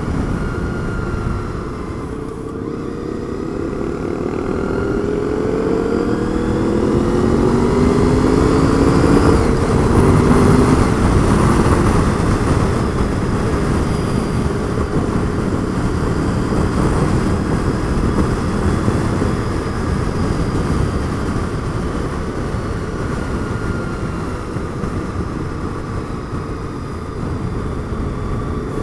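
1998 Honda VFR800's V4 engine accelerating, its pitch rising steadily for several seconds before settling into a steady cruise, under heavy wind rush on the helmet-mounted microphone.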